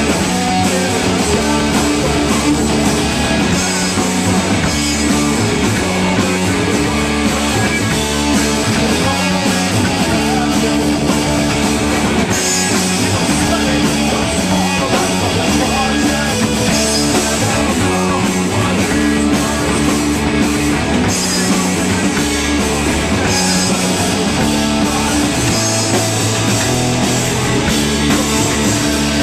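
Live rock band playing loud and steady: electric guitar, bass guitar and drum kit together.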